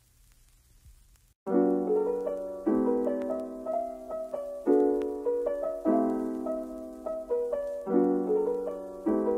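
Gentle piano background music starts about a second and a half in, after faint room noise. Chords are struck roughly every second or so and each fades away.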